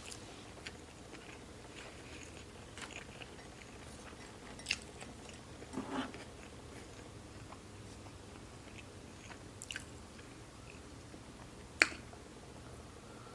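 A person chewing and biting food close to the microphone, quiet, with a few scattered sharp mouth clicks a few seconds apart; the sharpest click comes near the end.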